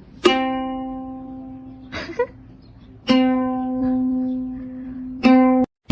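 A single musical note at the same pitch, plucked or struck three times about two and a half seconds apart, each one ringing out and fading; a brief short sound comes between the first two, and the sound cuts off abruptly near the end.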